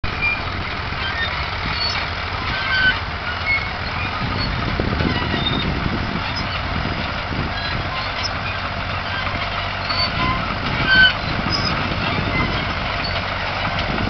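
County crawler tractor's engine running steadily under load as it pulls a plough through stubble. Short high squeaks are scattered through it, the loudest about three seconds in and again near eleven seconds.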